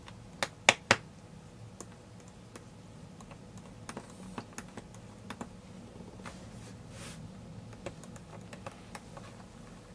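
Small Phillips screwdriver working out the bottom-case screws of a mid-2011 MacBook Pro: scattered light clicks and ticks of metal on the screws and case. Three sharp clicks come within the first second.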